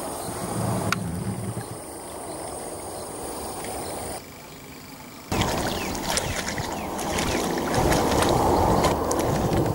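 Water lapping and splashing around a small boat on a river, with a steady high insect drone over the first four seconds. The sound drops away for about a second and then comes back louder, with many short splashes.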